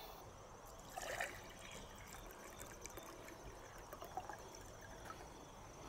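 Clear liquid poured from a plastic container into a glass measuring cup, a faint trickle.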